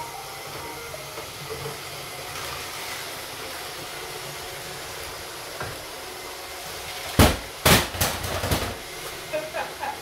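Three Roomba robot vacuums (a 561, a 620 and a Pro) running together with a steady whir from their vacuum motors and brushes. About seven seconds in comes a cluster of loud knocks and clatter lasting about a second and a half.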